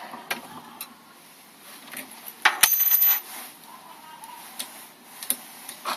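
Small metal objects handled on a hard surface: scattered light clicks, and one sharp metallic clink about two and a half seconds in that rings briefly at a high pitch, as a mortice lock or picking tool is set down.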